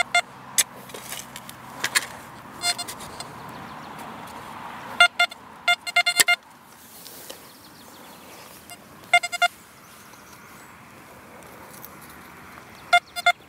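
A few knocks of a spade cutting into soil, then the XP Deus metal detector giving several clusters of short, quick beeps as the dug soil is passed over its coil. The signal is a low-conductivity target reading 24, given by a lump of coke or coal rather than metal.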